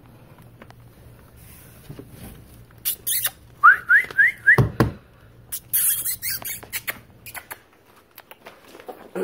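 Rustling and knocking of stored bottles, bags and boxes being disturbed, in several loud bursts. About four seconds in comes a quick run of four short, rising, high-pitched squeaks.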